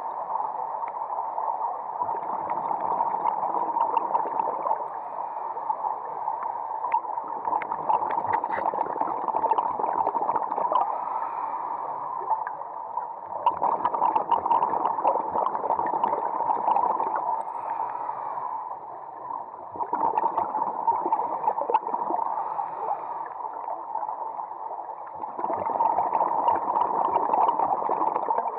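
Scuba regulator exhalations heard underwater: five crackling bursts of bubbles, each about three seconds long, one every five or six seconds, over a steady hiss.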